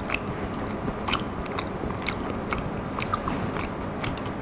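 A person chewing a mouthful of deep-fried guiling (tortoise) jelly with a crisp fried crust: small, irregular crunches every second or so.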